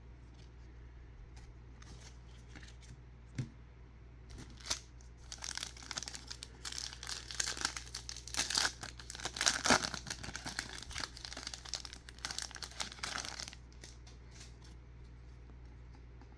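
A trading-card pack's wrapper being torn open and crinkled by hand: a dense crackling that starts about four seconds in and stops about nine seconds later, after a couple of light taps.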